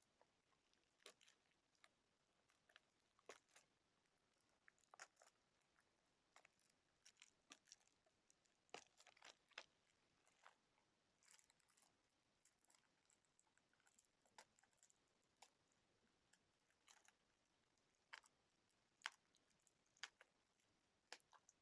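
Faint, irregular crackles and clicks of a plastic Blu-ray keep case and its packaging being handled and worked at by hand.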